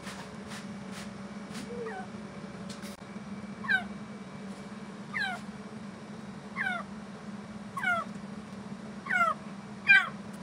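Kitten with ear mites meowing over and over while its ear is swabbed clean: about seven short, high calls, each falling in pitch, roughly every one and a half seconds and growing louder toward the end.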